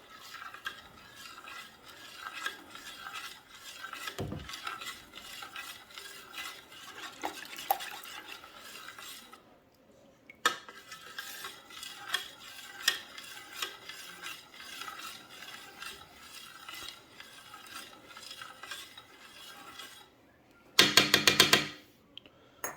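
A utensil stirring a freshly salted chicken brine, a steady scraping and clinking against the container as the salt is worked into the water. It stops briefly about ten seconds in and then goes on; a louder sound lasting about a second comes near the end.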